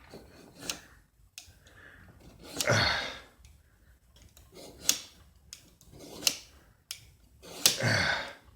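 A few sharp clicks and knocks, as of tools being handled and set down, with two heavy breathy exhales or sighs, one about three seconds in and one near the end.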